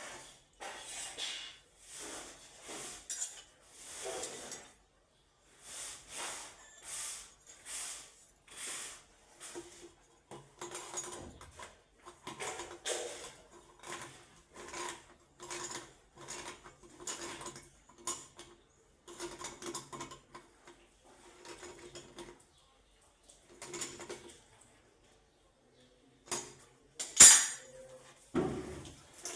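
A metal hand tool scraping and clinking in repeated short strokes, about one or two a second, with one sharp loud knock near the end.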